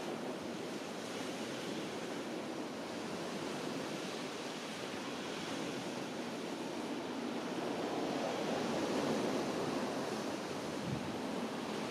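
Sea surf washing onto a beach, a steady rush that swells about eight seconds in, with some wind noise on the microphone.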